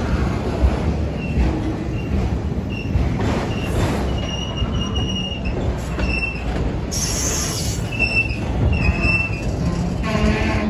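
Freight train of autorack cars rolling past at close range: a steady rumble of wheels on rail, with short high-pitched wheel squeals coming and going.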